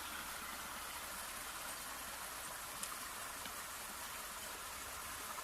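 Steady rush of running water, plausibly rain runoff flowing, with a faint click about three seconds in.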